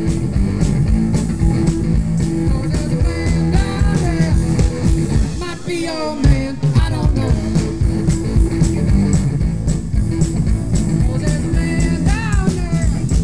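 Live rock band playing an instrumental stretch of a song: a steady drum beat with cymbals under bass and electric guitar, with gliding pitched lines about six seconds in and again near the end.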